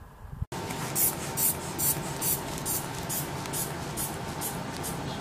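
A run of short scratchy strokes, about two a second, over steady room hum with a faint steady tone; the strokes die away after about four seconds.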